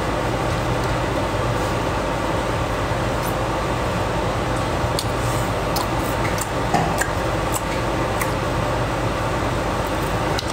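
A steady fan-like hum and hiss of room noise, with a few faint clicks scattered through it.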